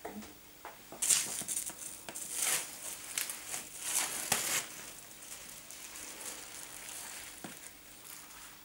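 Plastic cling film crinkling and rustling as it is spread and smoothed over a baking tray, in a cluster of sharp crackly bursts in the first half and fainter rustles after.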